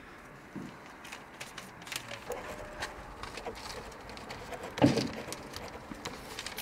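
Scattered small clicks and knocks, with one louder thump about five seconds in.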